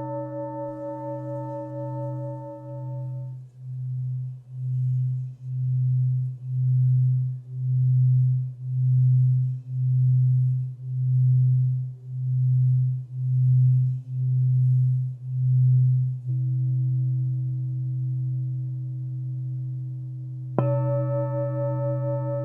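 Alchemy crystal singing bowls ringing. A deep hum pulses in a slow wah-wah about every three-quarters of a second, then settles into a steady drone. The higher ringing drops away about three seconds in, and near the end another bowl is struck and rings with a brighter, fuller tone.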